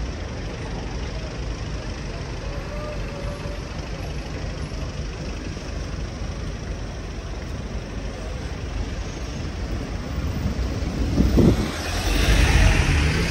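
City street traffic: a steady low rumble of road vehicles, swelling louder near the end as traffic passes close.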